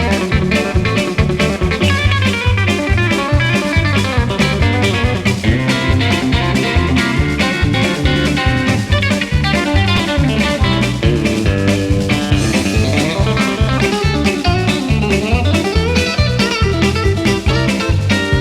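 Background music: a blues-style guitar track over a steady drum beat.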